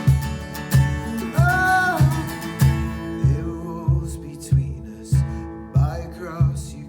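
Music: acoustic guitar over a steady beat of about a hundred beats a minute, with a voice singing two brief phrases.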